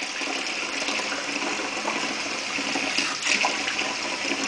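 A little water poured from a cat-food can into a bowl of wet tuna cat food, heard over a steady rushing hiss. There is a brief sharper noise about three seconds in.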